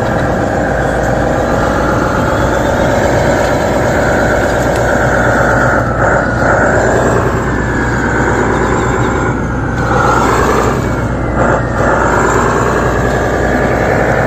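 Excavator engine and hydraulics working as the bucket swings and dumps, a steady machine drone whose pitch sags and rises again several times with the load.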